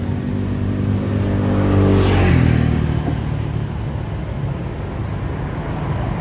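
A motor vehicle driving past, its engine note dropping in pitch as it goes by about two seconds in, over a steady low engine hum.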